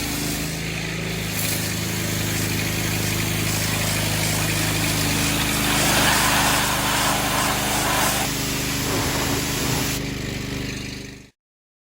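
An engine running steadily under a broad rushing noise that swells about halfway through and eases a couple of seconds later. It cuts off abruptly near the end.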